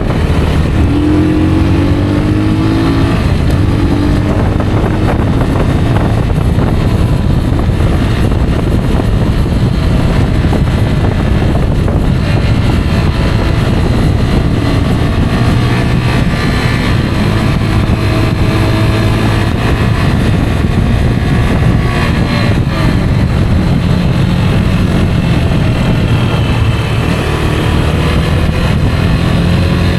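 Rieju Aventura 125 single-cylinder four-stroke engine running as the motorcycle is ridden, its pitch rising and falling with the throttle. A constant low rushing noise runs underneath.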